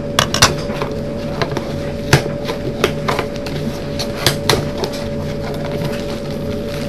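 Scattered taps and knocks of a cardboard shipping package being handled, over a steady electrical hum.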